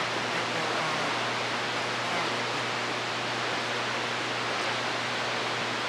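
Steady hiss of static from a CB radio receiver on an open channel, with no station transmitting.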